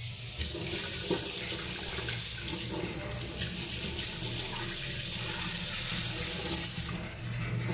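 A newly installed wall-mounted kitchen faucet running a steady stream into a stainless steel sink, with hands splashing as they are washed under it. The flow is cut off near the end.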